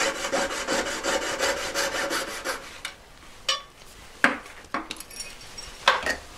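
Jeweller's saw blade cutting through the join of a silver ring shank against a wooden bench peg, in quick, even strokes that stop about two and a half seconds in. The ends are being sawn through together so they close up tight for soldering. A few light clicks follow.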